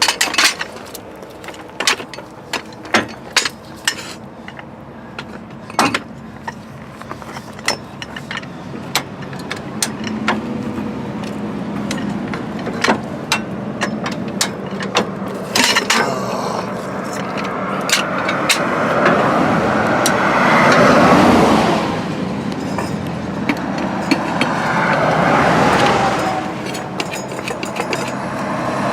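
Scattered sharp knocks and clanks of hand work on a trailer tire and wheel, busiest in the first half. Later a vehicle goes by twice, each time swelling and fading over a few seconds.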